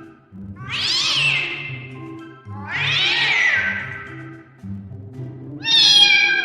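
A cat meowing three times, each meow over a second long; the first two rise and then fall in pitch. Background music plays underneath.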